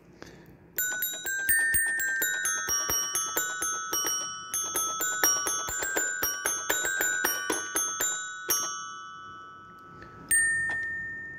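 Children's toy xylophone-piano, its keys pressed in quick succession so its metal bars are struck, giving a jumble of ringing notes several a second. The playing stops about eight and a half seconds in, then starts again with a loud note about ten seconds in.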